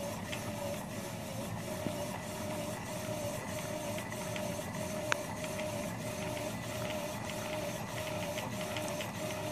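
Firefly electric handcycle attachment's front hub motor spinning its wheel: a steady, slightly wavering whine with faint ticks and one sharp click about five seconds in. The wheel wobbles and its brake disc is bent.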